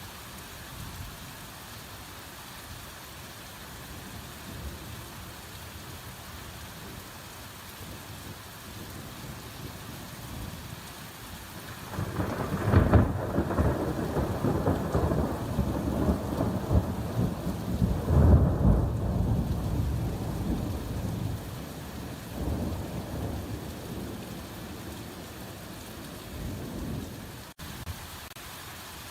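Steady heavy rain falling in a forest, with a long roll of thunder that swells in about twelve seconds in, peaks twice, then rumbles away.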